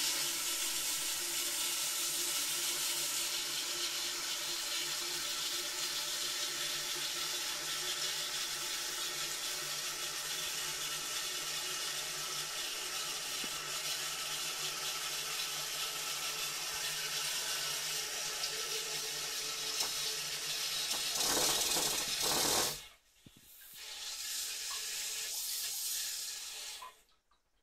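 Toilet cistern's float fill valve refilling the tank after a flush: a steady hiss of inflowing water with a faint whistling tone. It shuts off abruptly about 23 seconds in, then a softer hiss runs for a few seconds more and stops.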